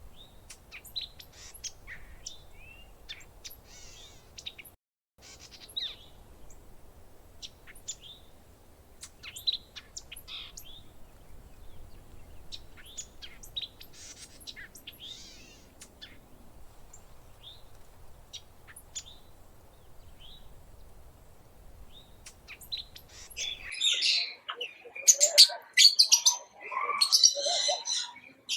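Birds chirping with scattered short calls over a faint low hum; about 24 seconds in, this gives way abruptly to louder, busier bird calling, many calls overlapping.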